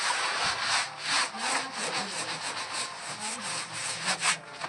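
A hand tool scraping against wood in rapid back-and-forth strokes, about four a second.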